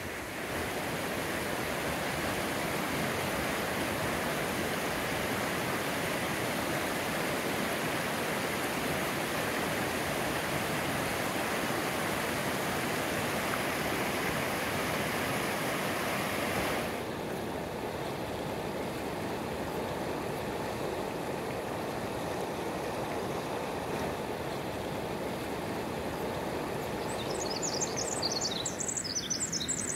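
Shallow mountain creek rushing over cobbles, a steady hiss of running water. About seventeen seconds in it cuts abruptly to a softer, duller rush. A brief burst of high chirping comes in near the end.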